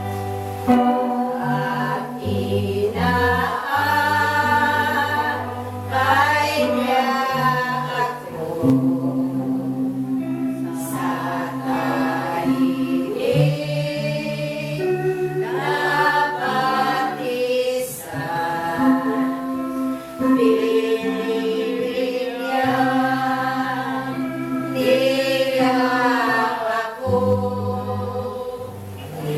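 A group of voices singing a slow, free-flowing worship melody with no clear words. The higher voices bend in pitch in long phrases over sustained low held notes.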